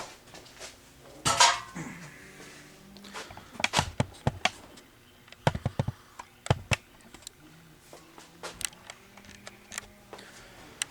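Metal rifle bolt parts clicking and clinking as they are handled and worked apart by hand, in irregular clusters. The loudest clink, about a second and a half in, rings briefly.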